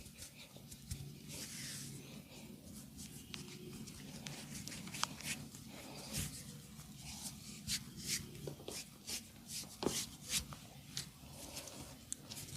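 Hands massaging, rubbing and kneading with dry rustling and many short soft clicks, which come thicker from about the middle on.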